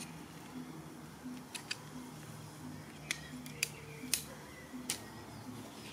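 Sharp clicks and taps of the poles of an ultralight folding camp chair being fitted into its frame, about six clicks over a few seconds.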